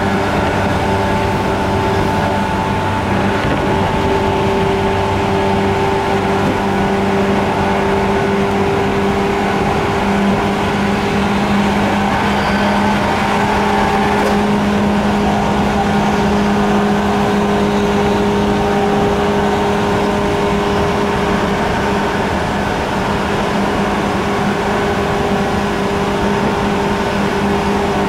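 JR 185 series electric train heard from inside its MoHa 185 motor car at speed: the MT54 DC traction motors and gears give a strong hum at a nearly constant pitch over the running noise of the car.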